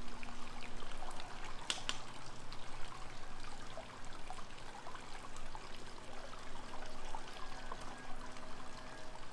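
Water trickling and pouring steadily, with many small splashes and drips.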